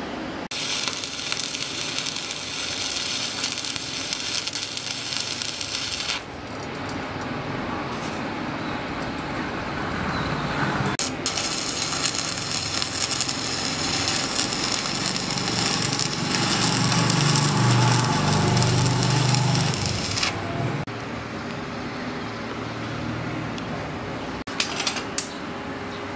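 Stick-welding arc crackling and hissing in two runs: one of about six seconds, then after a pause a longer one of about nine seconds.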